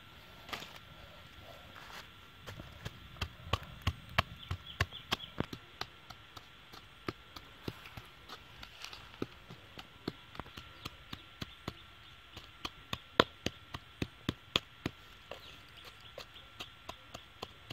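A hand-held stone pounding red chilies and garlic in a coconut-shell bowl, in repeated short knocks of about three a second.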